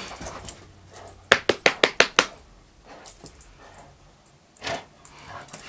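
Dog chewing and worrying a shoe: a quick run of about seven sharp clicks a second or so in, then one more near the end.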